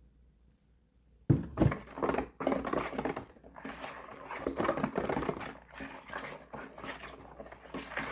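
A sudden loud thunk, then several seconds of irregular knocking and clattering from kitchen handling while the corn cake batter is being prepared.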